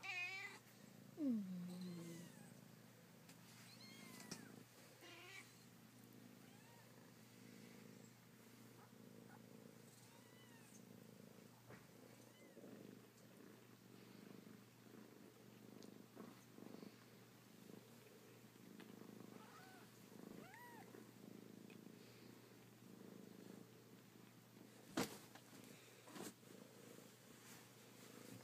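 A cat purring softly, with a falling meow about a second in and a few faint high mews from the kittens now and then. A single sharp click near the end.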